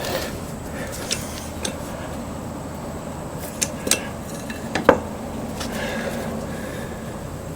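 Steel tools clinking and tapping against a steel car frame during bodywork: a handful of short, light metallic clinks, the loudest pair about five seconds in, over a steady low background.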